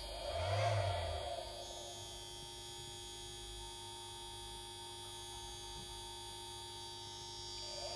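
Steady electrical hum with a faint high-pitched whine from the solar battery-charging equipment. A short, louder swell rises and fades about half a second to a second and a half in.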